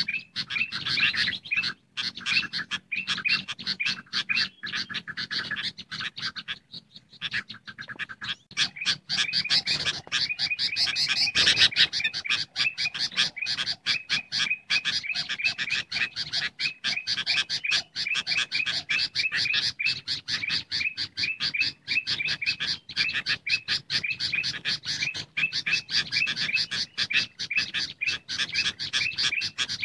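Bird-lure recording of bulbuls calling: busy, rapidly repeated chirping from sooty-headed bulbuls mixed with ruby-throated bulbul calls, briefly thinning out about seven seconds in.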